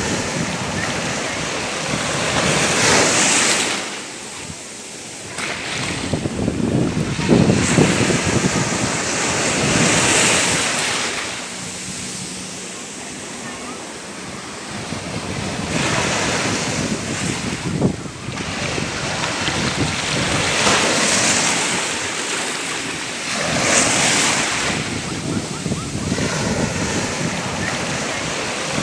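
Sea waves breaking and washing in, the surf swelling and falling away in surges every few seconds.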